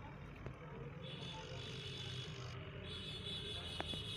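Swaraj 855 tractor's diesel engine running steadily under load, a low rumble, with a steady high-pitched tone joining about a second in.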